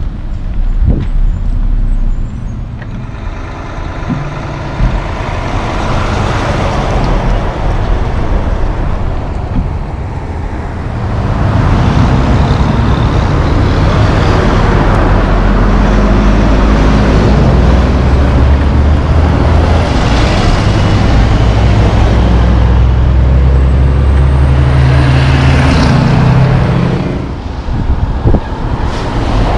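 Heavy diesel semi-trucks passing one after another amid road traffic, engines running and tyres on the road. The loudest part, from about ten seconds in until near the end, is a truck engine pulling hard with a low steady drone.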